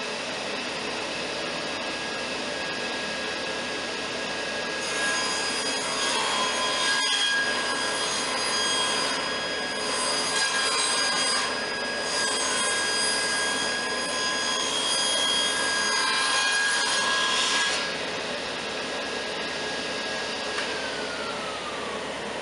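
Table saw ripping 1x8 boards into 3.5-inch strips, with a dust collector running. The blade and dust collector hum steadily, and from about five seconds in the blade cuts through the wood for roughly thirteen seconds, with brief breaks between pieces. Near the end one of the machine tones starts to fall, as a motor begins to spin down.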